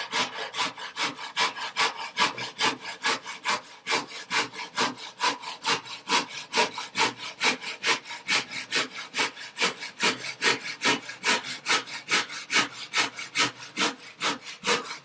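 Handsaw cutting an angle through a pine board, in steady back-and-forth strokes of about two to three a second.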